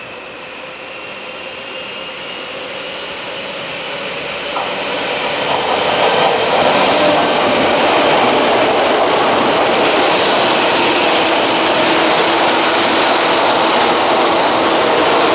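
Multi-car electric commuter train approaching and passing close by. Its sound grows louder over the first six seconds, with a thin high whine at first, then turns into a steady loud rumble of wheels on rail as the cars go by. There is a short high hiss about ten seconds in.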